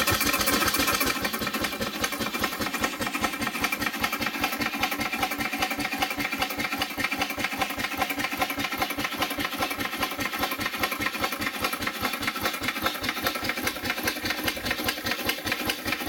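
York compound marine steam engine starting up on compressed air and running with a fast, even beat of exhaust puffs. Through it comes a light knocking from worn bearing clearances and valve-gear die blocks.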